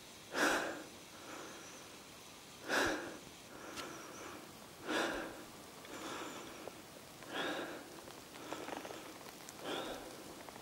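Heavy, rhythmic breathing of a ski mountaineer climbing uphill, with a loud breath about every two and a half seconds and softer ones between.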